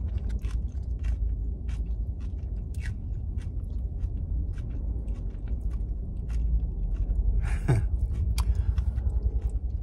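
A person chewing a soft, sticky rice roll, with many small wet mouth clicks, over a steady low rumble. There is a brief voice-like murmur that falls in pitch near the end.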